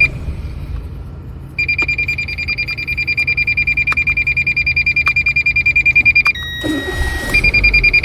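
A Renault Scenic's warning buzzer beeps rapidly at a high pitch, about six beeps a second, over the low hum of the engine idling. The beeping pauses in the first second or so, and again near the end, where a short steady tone and a rustle take its place.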